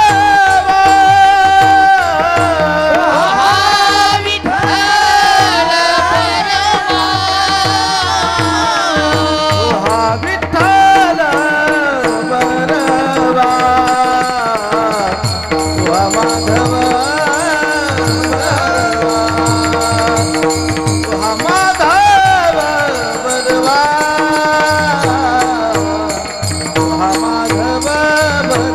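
Marathi varkari bhajan music: a long, ornamented melodic line without words, sung or played over a steady drone, with a drum beating underneath and small percussion.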